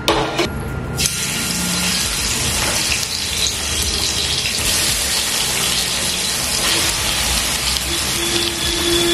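Prawns frying in hot ghee in a pan: a loud sizzle starts suddenly about a second in as they go into the fat, then keeps on steadily.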